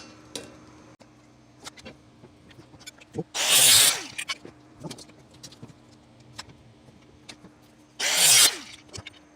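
A power saw making two short cuts through metal bracket stock, about four seconds apart, its motor pitch falling as it winds down after each cut. Light clicks of handling the pieces between the cuts.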